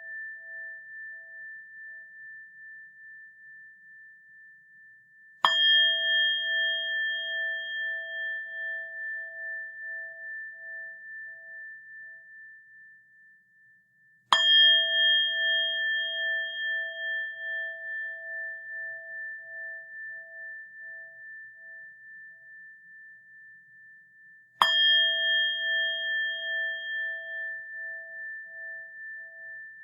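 A bell struck three times, about ten seconds apart. Each strike rings out in a long, slowly fading tone with a steady wavering pulse, and the ring of an earlier strike is still dying away at the start.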